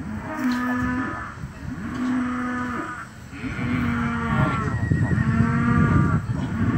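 Cattle mooing over and over, a drawn-out call about every one and a half seconds, around five calls in all.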